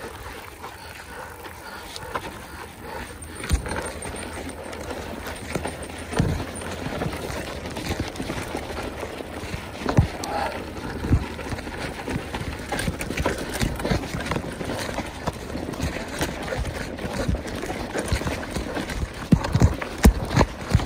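Mountain bike moving over rough ground: a steady rushing noise with irregular knocks and rattles from the bike. A louder thump comes about halfway through, and several more near the end.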